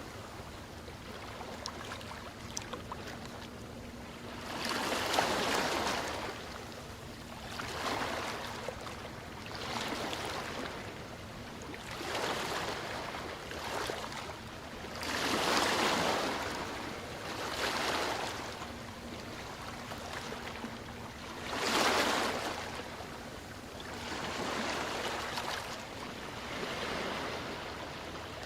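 Ocean waves breaking and washing in, one swell after another every two to three seconds over a steady wash of surf.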